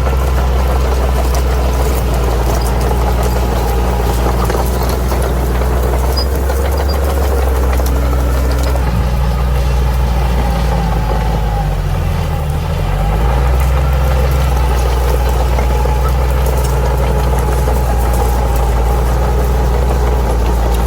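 Bulldozer's diesel engine running steadily. About twelve seconds in, its pitch dips briefly, then climbs back.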